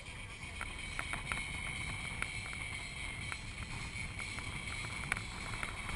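Motor boat underway at sea: a steady low rumble with a constant high whine, wind buffeting the microphone, and scattered short ticks and knocks throughout.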